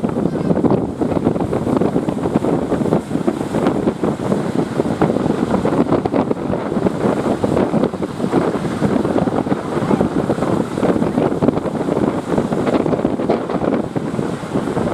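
Strong wind buffeting the microphone in a steady, rough roar, over the wash of sea waves.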